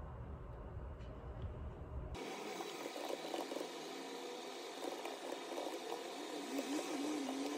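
A few faint laptop keyboard taps over a low rumble. About two seconds in, this cuts suddenly to a steady, rushing hiss.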